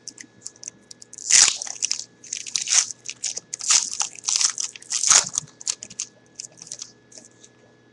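Foil wrapper of a 2011 Panini Gridiron Gear football card pack being torn open and crinkled by hand: a run of crackly rustles, loudest about a second and a half in, thinning out near the end.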